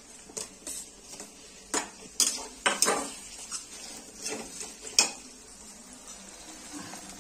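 A spoon knocking and scraping against a frying pan as onions and freshly added tomatoes are stirred in hot oil, over a faint steady sizzle. The knocks come irregularly, the sharpest about five seconds in, and fewer come near the end.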